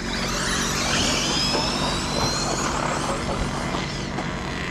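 Electric RC car's brushless motor whining under acceleration: a high whine rising in pitch over the first few seconds, over a steady rushing noise.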